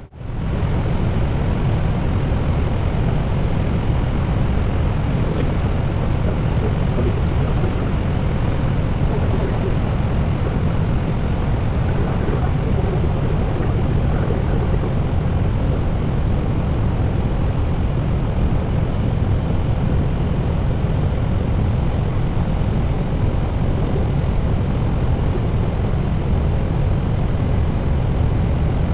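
Steady cockpit roar of an Airbus A320neo in flight, an even rushing noise heavy in the low end with no distinct tones.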